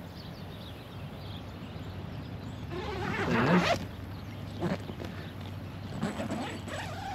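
An animal calling: a wavering, pitched call about three seconds in, the loudest sound here, with shorter calls just before five seconds and around six seconds.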